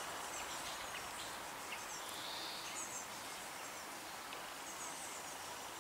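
Faint outdoor ambience: a steady, even hiss with a few small bird chirps now and then.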